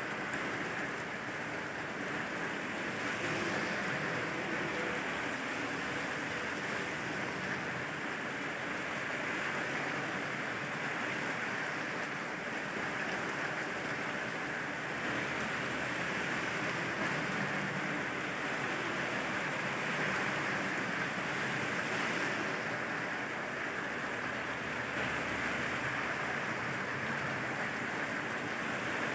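Steady rain, a constant even hiss with no pauses or distinct events.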